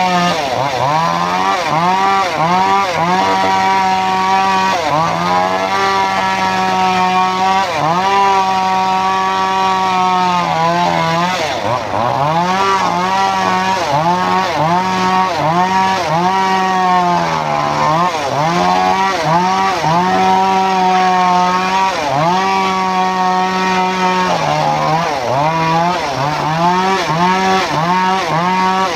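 Engine-driven homemade circular saw bench ripping timber planks. The engine runs at a steady pitch that sags each time the blade bogs in the cut, then climbs back, over and over.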